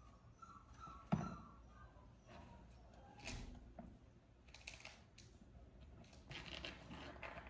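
Lakeland Terrier puppies playing with toys: faint, scattered rustling and scuffling as they rummage in a fabric toy bin and chew toys on a wooden floor, with one sharp knock about a second in.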